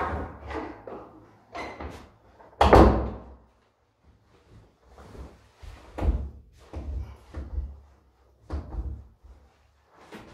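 A door bangs shut about three seconds in. It is followed by soft thumps and rustling as clothes are pushed along the gap at the foot of the door.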